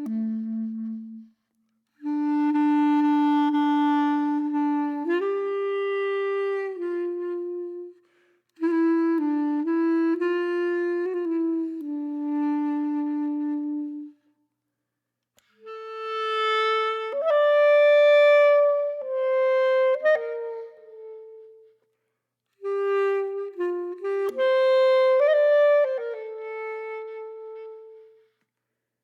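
Background music: a solo wind-instrument melody played in slow phrases of held notes, with short pauses between the phrases.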